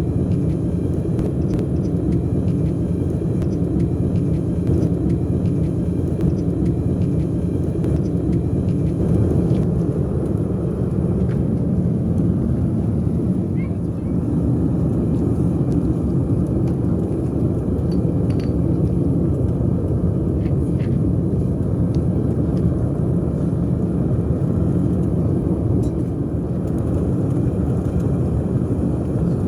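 Can-melting furnace burner running with a steady low rushing noise, with a few faint clicks over it.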